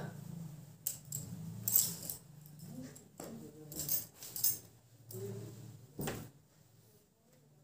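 Cloth rustling and bangles clinking on the wrist as clothes are handled and folded, in a run of short, jingling bursts.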